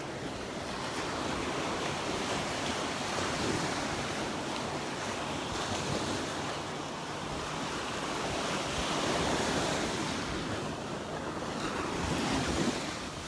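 Gulf of Mexico surf washing onto a sandy beach, a steady rush that swells and eases as waves break, loudest near the end, with some wind on the microphone.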